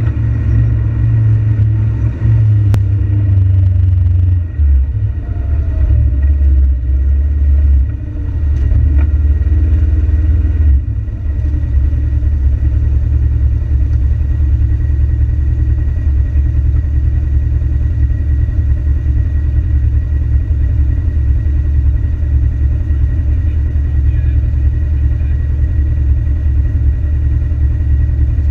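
A side-by-side UTV's engine heard from inside the cab, running as a loud low drone. The throttle eases off and back on a few times in the first ten seconds or so, then holds steady.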